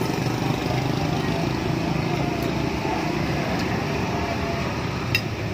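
Steady low engine rumble from nearby traffic, with a single sharp clink of metal cutlery against the bowl about five seconds in.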